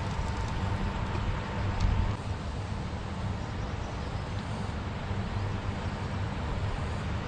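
Steady low rumble and hiss of outdoor riverbank ambience: flowing river water and wind on the microphone, with a brief louder swell about two seconds in.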